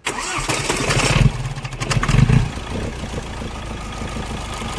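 Mahindra Scorpio mHawk diesel engine starting and catching, with two brief rises about one and two seconds in, then settling to a steady idle. The EGR valve is held fully open, which the mechanic says stops the tk-tk knock from the number 2 cylinder.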